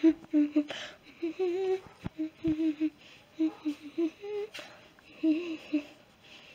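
A person humming a short tune in clipped notes. A few sharp clicks or knocks are heard in between.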